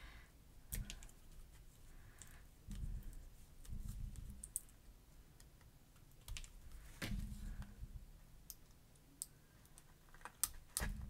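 Scattered small clicks and scrapes of a dull craft knife working at the plastic seal on a small spray bottle's cap, with low bumps from handling the bottle.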